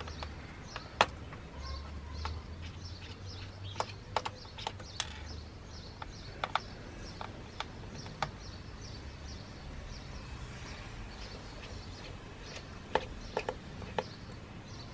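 Small Torx screwdriver turning screws out of a sat nav's plastic back casing: scattered light clicks and taps of the tool bit, screws and plastic, about a dozen in all, with the sharpest about a second in and near the end.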